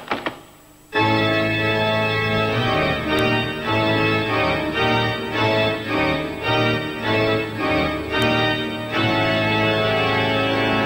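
Organ music: after a brief cluster of short clicks at the start, loud full organ chords come in about a second later. A run of repeated short chords follows, then a long held chord near the end.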